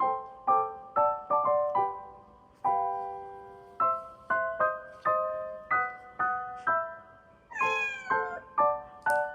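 A cat meows once near the end, a single call about a second long that falls in pitch, over light background piano music.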